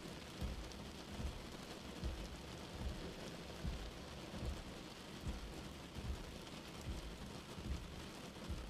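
Steady rain on glass with a regular low thump a little more than once a second, the sweep of slow-running windshield wipers.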